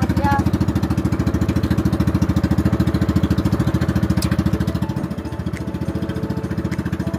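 Small engine of a motorized outrigger fishing boat running steadily under way, a fast, even putter. Its level drops a little about five seconds in.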